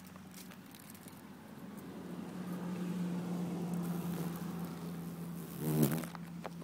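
Spider wasp's wings buzzing in flight: a steady low drone that grows louder as it comes close, with a brief stronger buzz near the end.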